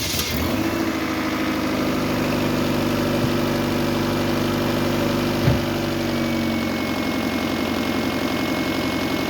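1990s Rover 216 engine idling steadily through a new exhaust system, with no exhaust blow or leak noise: the new gasket and exhaust are sealing. A single short knock sounds about five and a half seconds in.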